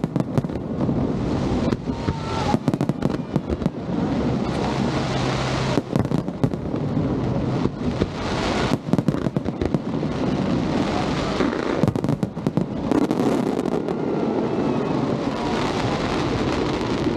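Aerial fireworks in the closing stage of a show: dense, overlapping bangs and crackles over a continuous rumble, many shells bursting every second.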